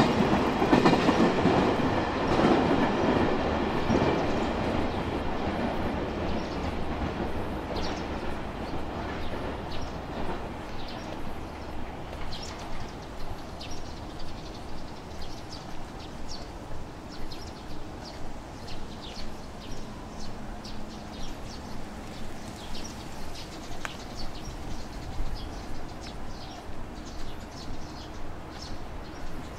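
A train on the JR Tokaido Line passing with a clickety-clack of wheels on rail joints, loudest at the start and fading away over about ten seconds. Then footsteps on the pavement, about one and a half a second.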